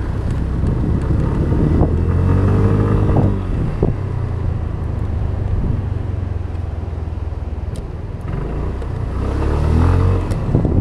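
Street traffic: a steady low rumble of vehicles, with two vehicles passing close by, their engine notes rising and then falling, one about three seconds in and another near the end.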